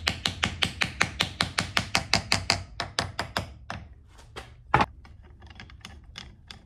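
Small hammer tapping quickly on the end cap of a 12-volt brushed electric motor, about seven light taps a second, to seat the cap's top bearing onto the armature shaft. The taps fade out about four seconds in, with one harder strike near five seconds and faint ticks after it.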